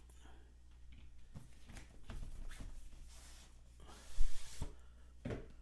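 A cardboard headphone box being opened by hand: packaging rubbing and sliding, with scattered clicks and taps and one sharp knock about four seconds in.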